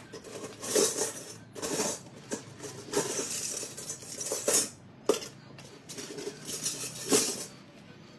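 Gold jewellery pieces clinking and jangling against each other as they are handled, in a string of irregular bursts.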